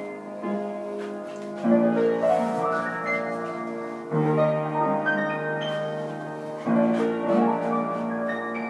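Piano being played: a new chord struck about every two and a half seconds, each followed by a run of notes climbing upward.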